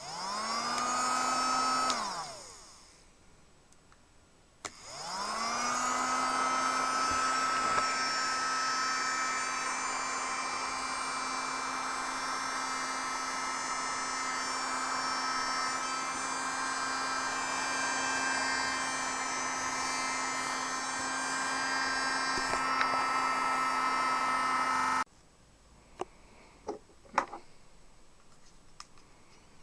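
Mini USB vacuum cleaner's small motor switched on and whining up to speed, then switched off and winding down after about two seconds. It starts again and runs with a steady whine for about twenty seconds before cutting off suddenly, followed by a few light clicks.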